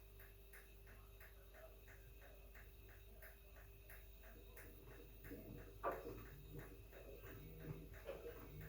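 Near silence with faint, even ticking about four times a second over a low steady hum, and one soft knock about six seconds in.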